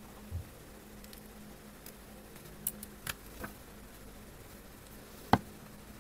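Small clicks and taps from handling gel pens and a book: a soft thud early on, three light clicks around the middle, and one sharp, louder click near the end. A faint steady hum runs underneath.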